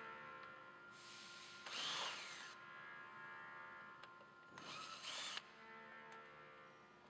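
Power drill-driver whirring in a few short bursts, each spinning up and winding down, as it backs out the screws holding the air filter box cover.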